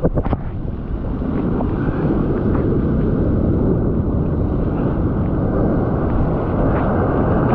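Breaking surf and churning whitewater right at the microphone, a loud steady rush, with wind noise on the microphone.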